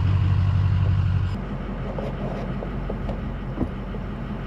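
Truck engine running with a loud, steady low rumble, heard from the driver's seat. About a second and a half in it cuts off suddenly, leaving a quieter steady low rumble with a few faint clicks.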